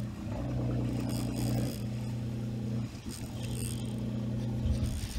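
Fishing boat's engine running steadily at low revs, a constant low hum.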